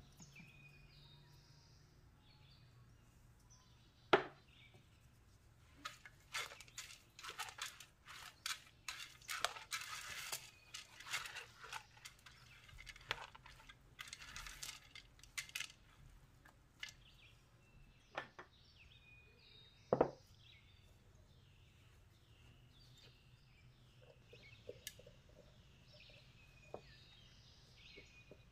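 A metal spoon stirs and scrapes through a bowl of raw rice, ground meat and chopped herbs, with quick clicks and clinks against the bowl and two sharp knocks. Near the end come softer clicks as the filling is spooned into a bell pepper. Birds chirp faintly in the background.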